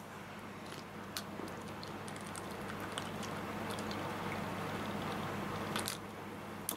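A man gulping beer from a can in one long drink, the swallows faint and soft, over a low steady hum.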